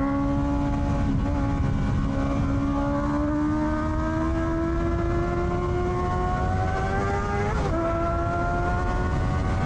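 Honda CBR650R's inline-four engine through an Akrapovic exhaust, pulling under load with its pitch climbing slowly and steadily; near the end the pitch drops briefly and then climbs again. Wind and road noise run underneath.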